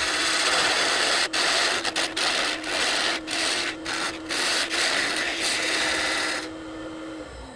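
A turning tool cutting into a walnut-and-epoxy blank spinning on a wood lathe: a steady scraping hiss, broken by several brief gaps as the tool lifts off. The cutting stops about six and a half seconds in, leaving the lathe's steady hum, which fades near the end.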